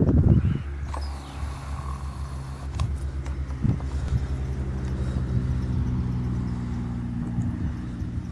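An engine idling steadily, a low even hum with a pulsing beat. There is a burst of wind and handling thumps on the microphone in the first half-second.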